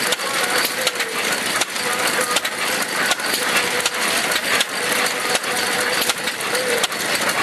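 Vintage stationary engine running, its open gears and valve gear making a busy metallic clatter, with a sharper knock about every three-quarters of a second.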